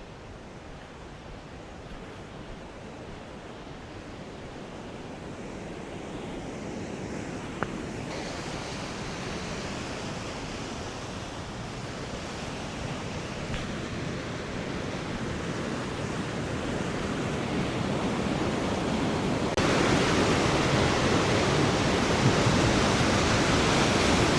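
Steady rush of river water at a waterfall, growing louder and then jumping up sharply about five seconds before the end.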